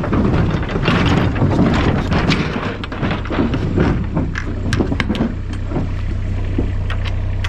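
Cattle clattering and thumping in a livestock trailer as they are loaded, with scattered sharp knocks in the second half, over a steady low engine hum.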